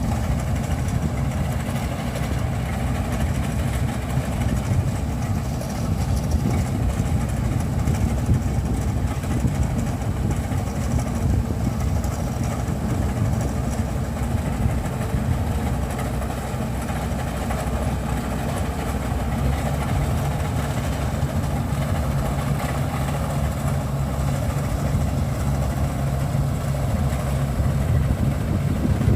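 Kubota DC93 combine harvester's diesel engine running steadily, a constant low drone with a slight change in its low tone about two-thirds of the way through.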